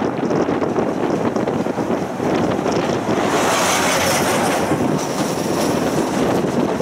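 A tram running along its tracks with a steady rolling rumble. From about three seconds in, a second tram passes close alongside, adding a brief hissing rush over the rumble.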